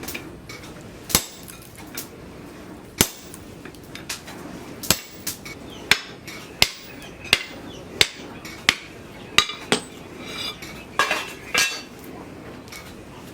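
Blacksmith's hammer striking metal in separate blows, uneven at first, then roughly one every three-quarters of a second; toward the end, metal clinks and rings.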